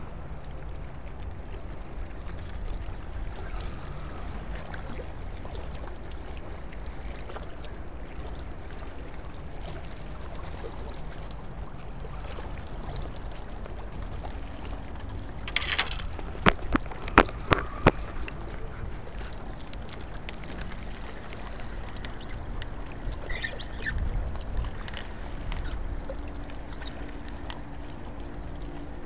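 Steady low outdoor rumble of wind and harbour ambience, with a quick run of sharp clicks and knocks about halfway through as fishing gear is handled. Near the end a spinning reel is cranked, adding a steady low whir.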